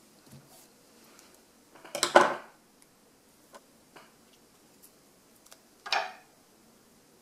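Glass dispenser bottles with steel caps set down on a table: a loud cluster of knocks about two seconds in, then a shorter knock of something else set down about six seconds in, with a few small taps between.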